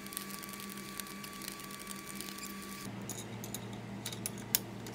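Light metallic clicks and taps of hand tools on a coil-spring compressor's threaded rod and clamps. They grow sharper and more frequent in the last two seconds, over a steady electrical hum.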